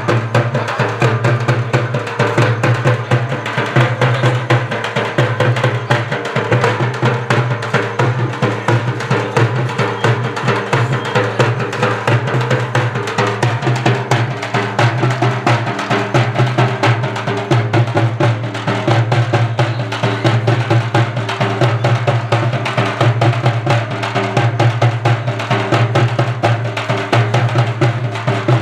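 Loud, fast drumming that keeps up a steady rhythm without a break, with a steady low hum underneath.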